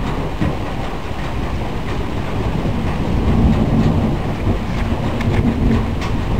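Thunder rolling: a long, continuous low rumble that swells about halfway through and eases slightly near the end.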